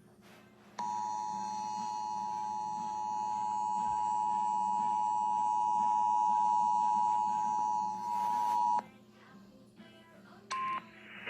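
Emergency Alert System attention signal: a steady two-tone alarm sounding for about eight seconds and cutting off suddenly. A brief single beep follows near the end.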